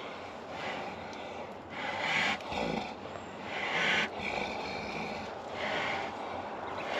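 Two fighting bulls snorting at each other as they push head to head: several hard breathy snorts, one every second and a half to two seconds.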